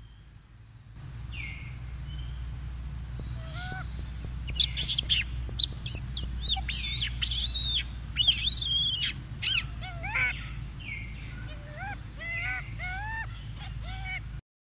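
Macaque monkeys calling: a run of loud, shrill screams in the middle, then a string of shorter squeals that rise and fall in pitch, two or three a second, near the end. A steady low hum sits underneath.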